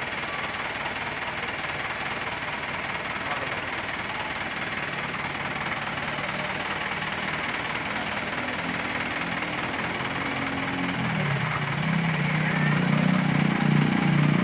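Bus engine running over a steady hiss; its low note comes in about five seconds in, dips briefly about eleven seconds in, then grows louder toward the end.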